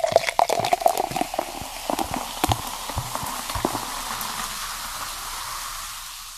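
Soda poured into a glass, fizzing hard with many small popping bubbles; the fizz fades away near the end.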